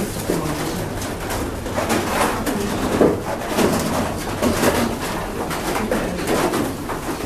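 Pigeons cooing over and over, with rustling handling noise.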